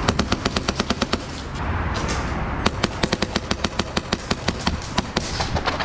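Airsoft guns firing rapid full-auto bursts, about ten shots a second, with a brief pause about one and a half seconds in before a longer string and a few more shots near the end.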